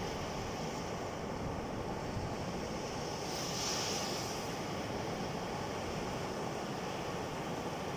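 Sea surf washing with wind on the microphone, a steady rushing noise; a brief louder hiss rises and falls about halfway through.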